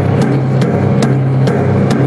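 Band music: a drum beat played on an electronic percussion pad, sharp hits about two to three a second, over held low bass notes.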